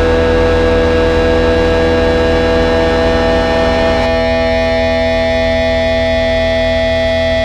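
Distorted electric guitar and bass left ringing with amplifier feedback as a raw punk song ends: a loud, steady noisy drone of held tones over a low hum. About four seconds in the held pitches shift.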